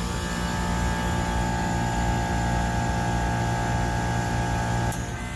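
AAON rooftop makeup air unit running: a steady hum of its compressor and fans, with a steady tone over the noise. About five seconds in there is a click, the tone drops out and the sound gets a little quieter.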